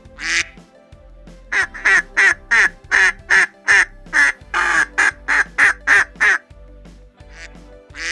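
Duck quacking: one quack, then a fast run of about fifteen quacks roughly three a second, then a couple more near the end.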